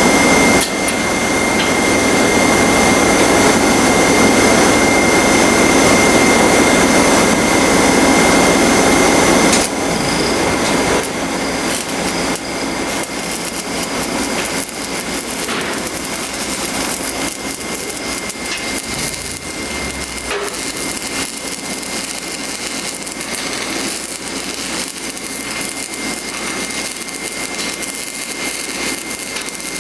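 Stick welding with a 6011 rod, laying a root pass into a crack in a steel part: the arc crackles over the steady run of an engine-driven welder. The sound is loud and full for the first ten seconds or so, then drops to a thinner crackle.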